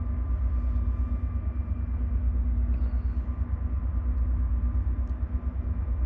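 Diesel engines of a towboat pushing a barge tow up the river: a steady low rumble with a faint hum over it.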